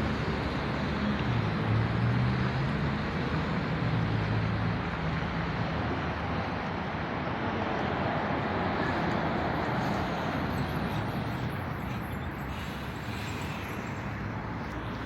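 A train running past at close range: steady rolling and rumbling noise, with a low engine drone that fades after about five or six seconds.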